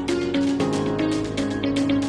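Background music: a melody of held notes over a steady beat with regular percussive hits.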